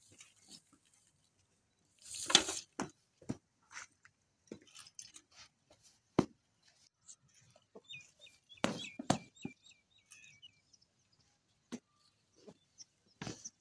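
Sparse footsteps, knocks and shuffling on pavement, the loudest a single thump about two seconds in, with a short run of small bird chirps about eight seconds in.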